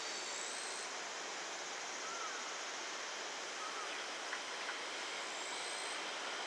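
Steady outdoor hiss, with faint sharp clicks of an EF210 electric locomotive's wheels over rail joints starting about four seconds in as it moves slowly through the yard.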